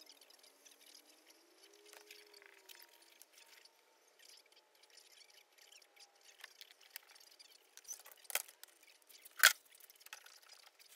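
Two sharp knocks near the end, the second much louder, as a plastic jug of epoxy resin is set down on a workbench. Before them only faint handling noise and small clicks.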